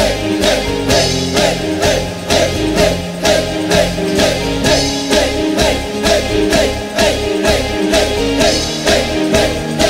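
Band music: guitar over a steady drum beat.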